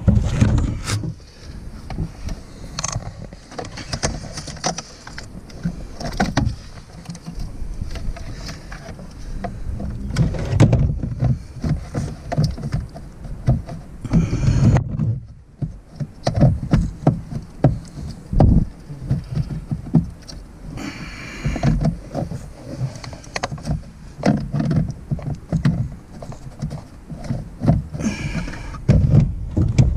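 Hand-fitting noises from a replacement heater blower motor being worked up into its plastic housing under a Jeep TJ's dashboard: irregular knocks, clicks and scraping of plastic parts, with rustling. The new motor is not running.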